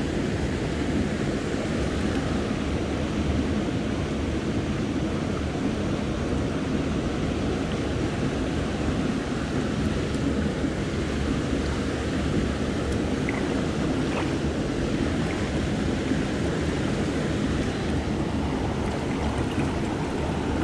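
Shallow stream water rushing steadily over stones and a low cascade, a constant full rush with no break.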